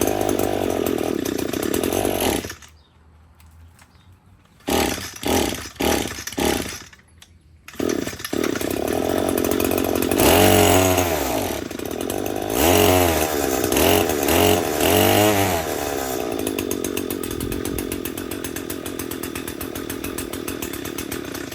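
Echo SRM-225 string trimmer's small two-stroke engine running on a freshly cleaned carburetor. It dies about two and a half seconds in and sputters in a few short bursts. It then catches again, is revved up and down four times, and idles steadily until it shuts off at the end.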